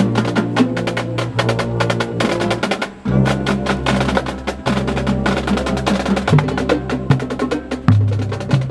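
Marching band playing: brass holding low sustained chords over a steady stream of drum strikes, with a brief dip about three seconds in before a new chord enters.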